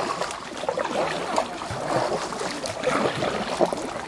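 Water splashing and sloshing around a kayak moving along a narrow irrigation ditch, with many irregular small splashes and knocks.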